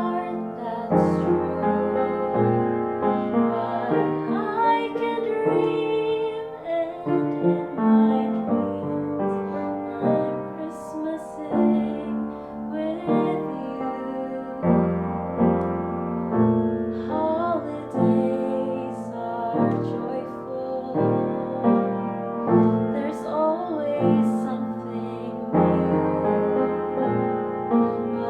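Piano playing slow, sustained chords while a woman sings held notes with vibrato over it.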